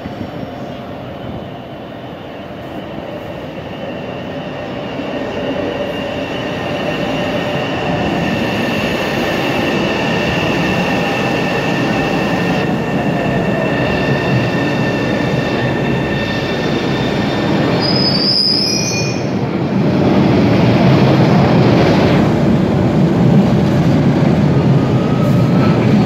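A new CRRC-built MBTA Orange Line subway train pulls into the station and rolls past along the platform as it brakes. High, steady wheel-squeal tones ring through the first half, and a brief high screech comes about 18 seconds in. The rumble of the cars grows steadily louder and is loudest as the train passes close in the last few seconds.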